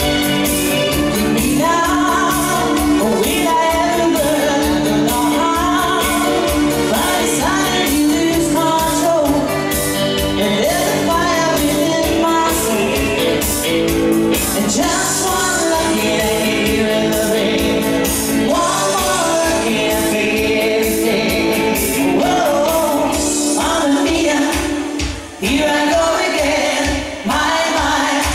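A woman singing a pop song into a microphone with a live band of guitar and keyboards over a steady beat, amplified through a PA. The music dips briefly twice near the end.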